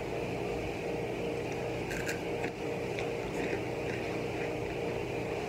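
Steady background hum, with a few crisp crackles of hot Cheetos being handled and crunched about two seconds in and again a second later.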